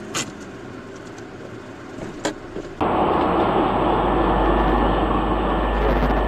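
Dashcam audio from inside a moving car: a quieter steady cabin and road noise with a sharp knock just after the start and another about two seconds in, then, about three seconds in, an abrupt switch to loud, steady road and wind noise of a car travelling at highway speed.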